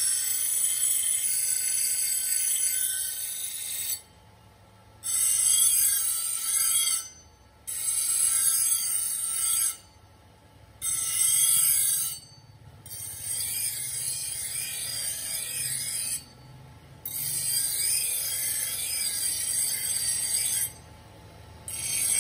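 Steel axe head being ground on a large motor-driven grinding wheel: a high grinding screech in repeated passes a few seconds long. Each pass breaks off briefly as the blade is lifted from the wheel, over the motor's steady low hum.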